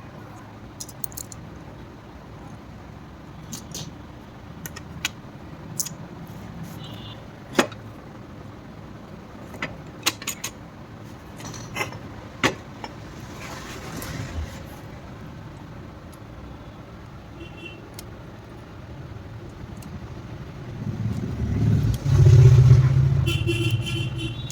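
Scattered metallic clicks and clinks of gearbox parts being handled and fitted into a motorcycle engine's crankcase. Near the end a vehicle engine rumble swells up loudly and then eases off.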